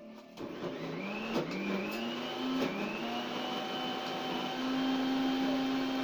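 A small motor whirring, its pitch rising over the first two seconds and then holding steady, with a few faint clicks.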